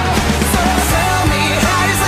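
Rock music with a steady drum beat and a wavering melody line over it.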